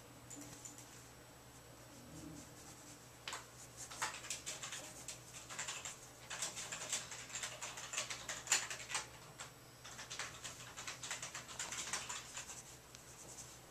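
Pencil scratching on paper in quick, irregular strokes while sketching, faint at first and busier from about three seconds in.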